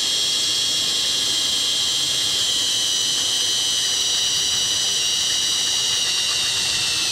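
Cordless drill running steadily as it bores a pilot hole through the plastic housing of an electric trolling motor's head: a continuous high motor whine whose pitch sinks slightly as it goes.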